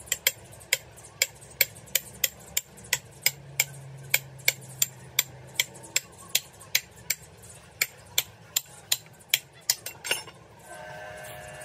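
Light metal-on-metal taps, evenly repeated about two or three times a second, like a hammer tapping on metal parts; near the end they stop and a steady hum begins.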